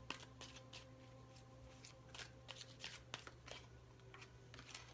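A deck of tarot cards being shuffled by hand: soft, irregular card clicks and slaps, over a faint steady hum.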